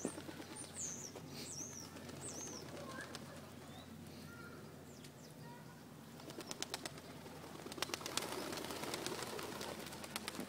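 Flock of feral pigeons feeding on snow: several short, high chirps in the first few seconds, then rustling with runs of quick ticks, busiest about eight seconds in.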